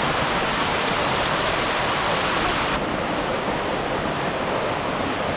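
Small waterfall splashing and rushing steadily. It turns duller about halfway through as its highest hiss drops away.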